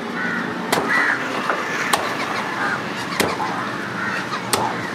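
Machete chopping through a large fish on a wooden chopping block: four sharp chops about a second and a quarter apart. Crows cawing in the background.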